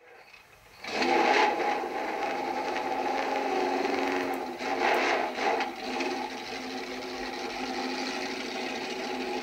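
Allen Millyard's home-built Kawasaki Z1 1600 V8 motorcycle engine running, made from two Z1 four-cylinder engines. It starts up about a second in and swells louder twice, near the start and again about five seconds in, under the throttle, then runs steadily. The sound is thin, with little bass, as played back from an old TV recording.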